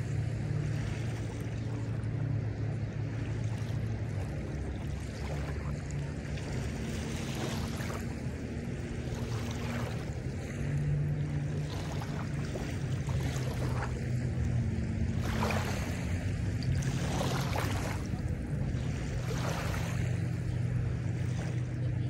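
Small waves lapping and washing up on a sandy lake shore every second or two, over the steady low drone of a motorboat engine out on the lake.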